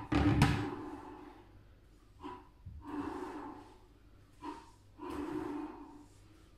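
Short, effortful breaths puffed out about four times, by people holding a prone back-extension (Superman) exercise, after a brief loud knock and rustle at the start.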